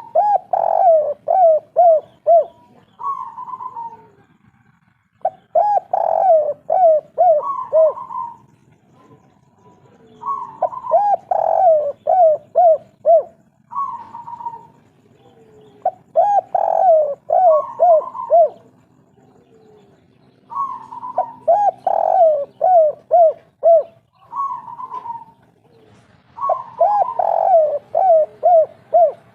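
Spotted dove (derkuku) singing the kuk-3 song, repeating its cooing phrase about every five seconds. Each phrase opens with a higher note and runs into a quick row of falling coos.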